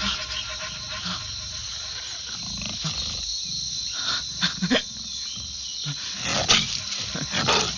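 Jaguar growling low and continuously, with a few sharp clicks and rustles scattered through it.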